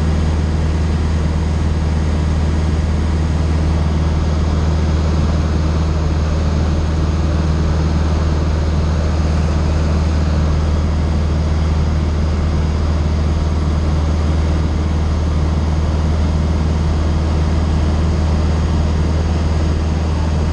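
Light aircraft's engine and propeller droning steadily in flight, heard inside the closed cockpit, with a deep, even hum and rushing air noise over it.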